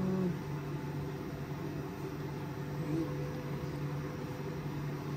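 Steady low machine hum over a faint hiss, with a person's drawn-out voice trailing off in the first moment.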